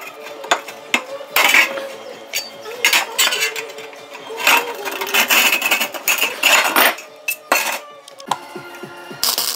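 Hand tin snips cutting through a folded sheet-metal grill heat tent: a run of irregular, sharp metallic crunching snips.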